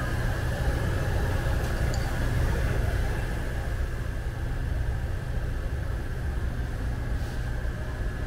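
Steady machine hum with a constant high whine over it.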